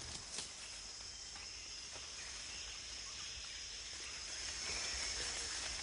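Tropical rainforest ambience: a steady, high-pitched insect drone with a few faint clicks.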